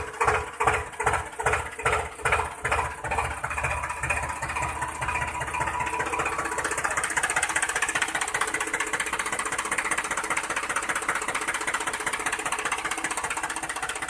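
Small engine of a miniature model farm machine running, first a slow chug of about two beats a second that quickens within a few seconds into a steady fast buzz.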